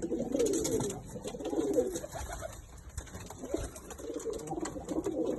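Domestic pigeons cooing in low, warbling phrases, easing off about two seconds in and picking up again near the end, with a few faint clicks.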